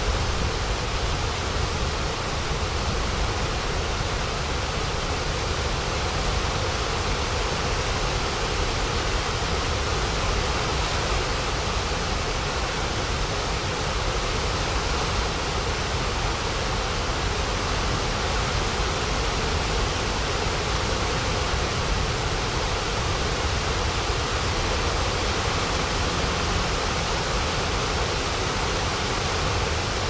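Water spilling over a low dam's weir and churning on the rocks below: a steady, unbroken rush of falling water.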